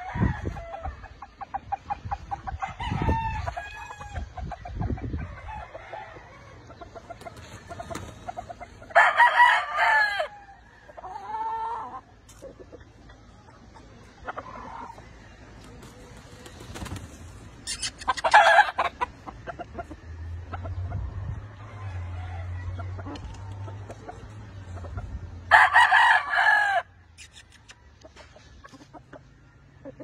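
Gamefowl roosters crowing three times, each crow about a second and a half long, with softer clucks and calls in between.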